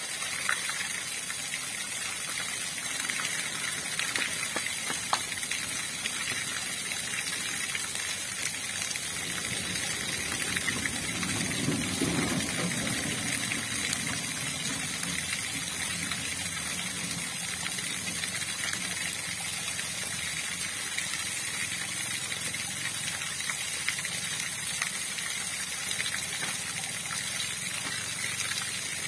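River water flowing and gushing steadily, with a deeper surge of water for a few seconds around the middle.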